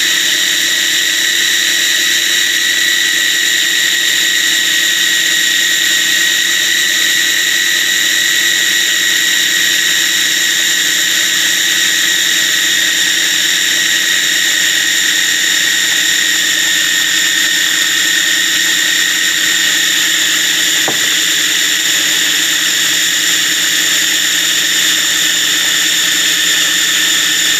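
Food processor motor running with a steady whine, blending garlic as oil is drizzled in to emulsify it into toum garlic sauce.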